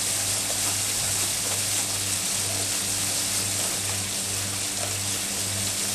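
Hoover Autojet dishwasher running: water spraying inside with a steady hiss over the motor's hum. About two seconds in, the hum starts dipping regularly, about twice a second.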